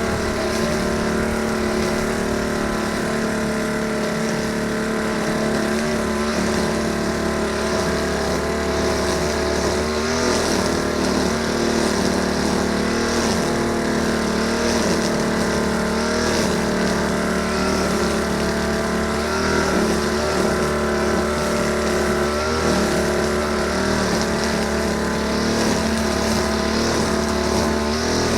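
Grass cutter's small engine running steadily at working speed, its pitch dipping briefly now and then.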